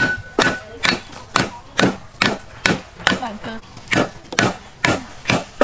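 Meat cleaver chopping on a wooden chopping board in steady, even strokes, a little over two a second.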